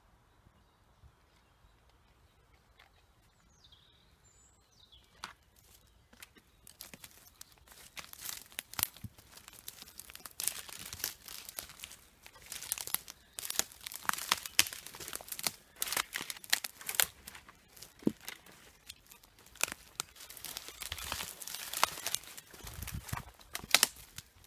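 Footsteps through forest undergrowth, with dry twigs and branches crackling and snapping underfoot and brush rustling. It starts about six seconds in and grows busier, as irregular sharp cracks.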